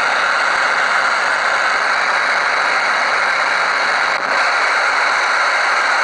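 Radio receiver playing the hard, steady noise of a 4G base station's 20 MHz-wide OFDM signal: an even hiss with no tone or voice in it. The noise briefly dips about four seconds in.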